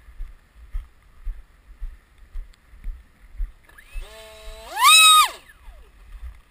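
FunJet RC jet's electric motor and pusher propeller run up in the hand: a whine rising in steps from about four seconds in, held briefly at full throttle, then falling away quickly. A quick throttle check that the battery still has power.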